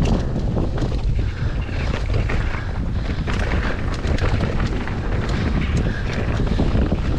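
Wind buffeting the microphone on a mountain bike ridden fast down a dirt trail, under steady tyre and trail noise with scattered clicks and rattles from the bike.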